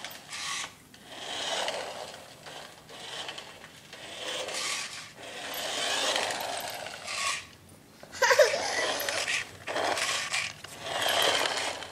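Small toy RC stock car's electric motor and plastic wheels whirring and scraping across a hardwood floor in repeated short runs of a second or two, with a brief squeak about eight seconds in.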